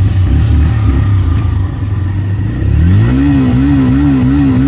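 Motorcycle engine idling with a steady low hum, then revved up about three seconds in, its pitch wavering evenly up and down as the throttle is worked.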